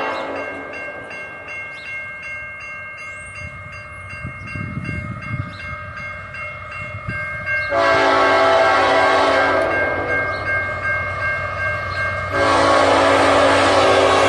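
Nathan K5HLA five-chime locomotive air horn sounding a chord: held more quietly at first, then a loud two-second blast about eight seconds in and another loud blast starting about twelve seconds in. Under it is a low rumble of the passing train.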